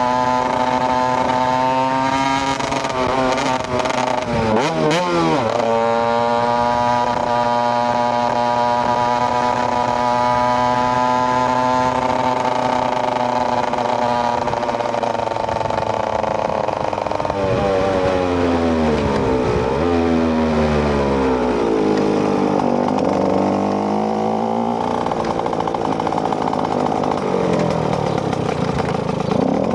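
KTM EXC 125 single-cylinder two-stroke engine running under way. Its revs hold steady with a quick drop and rise about four seconds in, stay level for a long stretch, then fall and rise several times in the second half.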